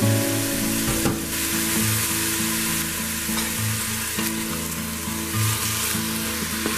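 Beef cubes and chopped onion sizzling steadily as they brown in the hot stainless steel inner pot of an Instant Pot, stirred with a wooden spoon.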